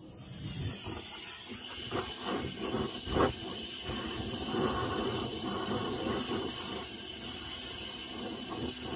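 Gas torch flame hissing steadily as it heats a rusted exhaust manifold bolt, with a few short crackles, the sharpest about three seconds in.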